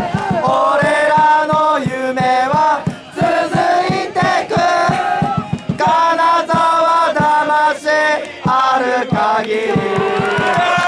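A crowd of football supporters and players singing a victory song together in unison, with a steady beat of about four strokes a second underneath.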